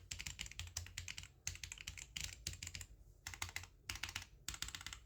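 Typing on an Aukey KMG14 RGB mechanical keyboard fitted with Aukey's own red linear switches: quick runs of key clicks broken by short pauses.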